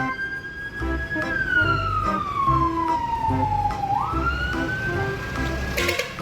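A siren wailing: it falls slowly in pitch, climbs quickly about four seconds in, holds, then starts falling again near the end. Background music plays underneath.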